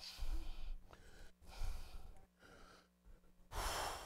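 A man's breathing in a pause: a few short airy breaths and a sigh, the last one, near the end, the loudest, over a faint steady hum.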